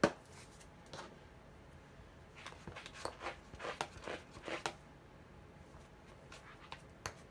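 A rubber stamp being cleaned off by hand: a sharp tap, then a run of short wiping strokes about halfway through, and a few light clicks near the end.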